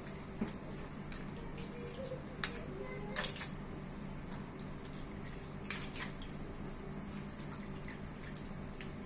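Metal spoon pressing and scraping wet tamarind pulp through a stainless steel mesh sieve, with a few sharp clicks of spoon against the sieve and soft wet squelching of the pulp, over a steady low hum.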